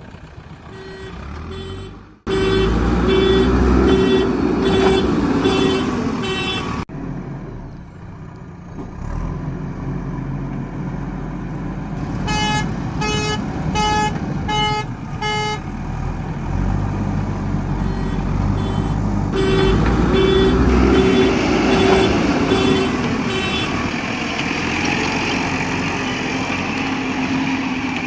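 Truck or construction-vehicle sounds: a horn beeping in repeated short toots, in three runs, over a steady engine rumble.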